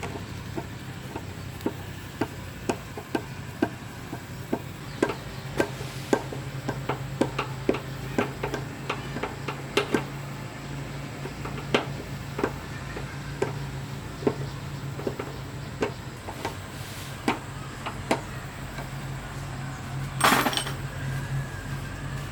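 Irregular sharp taps and knocks of hand tools on metal engine parts, roughly one or two a second, over a steady low hum. About twenty seconds in there is a brief, louder rush of noise.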